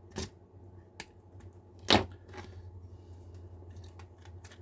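Sharp snips and clicks of a small plastic socket on a slot car chassis being cut away, with the loudest snap about two seconds in. A low steady hum runs underneath.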